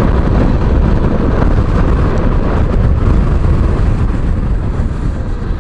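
Yamaha Serow 250 motorcycle riding at road speed: wind rumbling over the handlebar-mounted microphone, mixed with the single-cylinder engine's running note.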